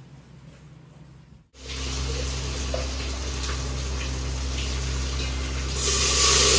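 Milk being poured from one steel pot into another, a gushing splash that starts near the end and is the loudest sound. Under it runs a steady low hum that starts abruptly about a second and a half in.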